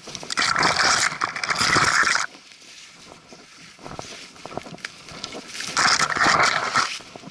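Twigs and brushy conifer branches rasping and rustling against the camera as a hiker forces through dense undergrowth. There are two loud bursts, about two seconds long near the start and a shorter one about six seconds in, with faint twig crackles and footfalls between them.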